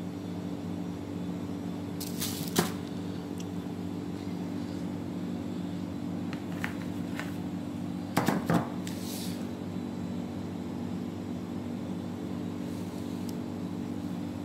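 A steady low machine hum. A sharp knock comes about two and a half seconds in, and a brief cluster of clatters around eight seconds.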